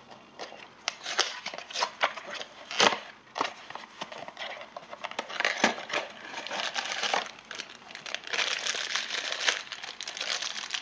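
Cardboard blind box being opened by hand: a run of sharp crackles and rustles. Then a black foil bag taken from inside it crinkles more steadily from about eight seconds in.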